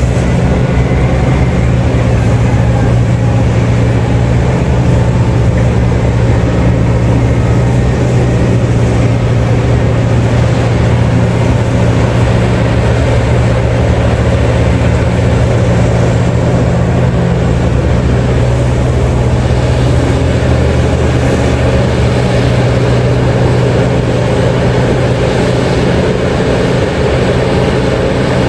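Heavy mining machinery's big diesel engines running steadily, a loud low drone with a faint shift in pitch about two-thirds of the way through.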